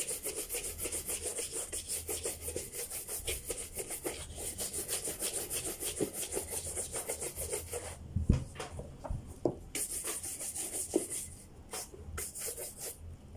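Brisk, even buffing strokes on a leather shoe, about five a second, bringing it to a shine. About eight seconds in the strokes stop, giving way to scattered knocks and handling of the shoe.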